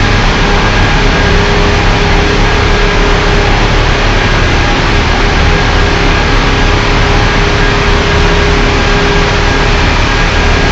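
Heavy engine running steadily: a loud, constant drone with a steady low hum that does not change.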